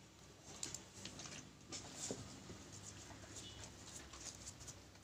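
Faint rustles and small irregular clicks of hands handling and pressing a strip of corrugated cardboard while it is hot-glued in place.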